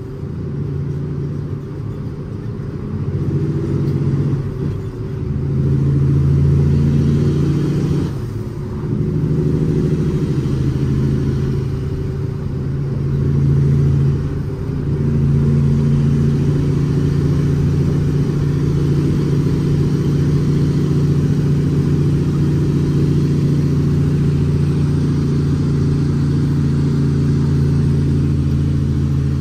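Cummins ISX inline-six diesel in a loaded International ProStar dump truck, heard from inside the cab while pulling on the road. In the first half the engine note dips briefly a few times and shifts in pitch, then settles into a steady drone.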